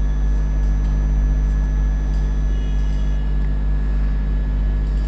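Steady low hum of background noise, with a few faint steady whines above it.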